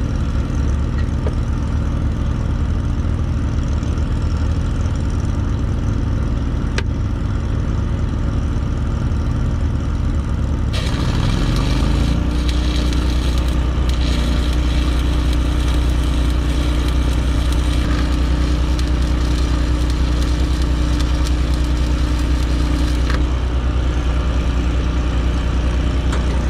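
An engine-driven welder runs steadily. About eleven seconds in, a 5/32-inch stick-welding arc strikes and crackles steadily for about twelve seconds while the engine's tone changes under the load, then the arc breaks off.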